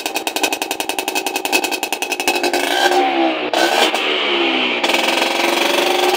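Auto rickshaw engine running fast, with rapid, even exhaust pulses for the first couple of seconds, then revved up and down.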